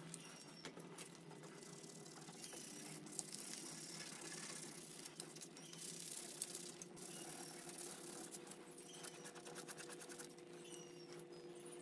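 Faint scratchy rubbing of sandpaper on a hardwood knife handle, sanded by hand in short strokes, over a low steady hum. Short high squeaks recur every second or two.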